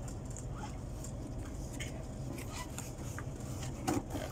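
Cardboard laptop box being handled and opened: scattered light scrapes and taps of the cardboard, with a louder knock about four seconds in, over a steady low hum.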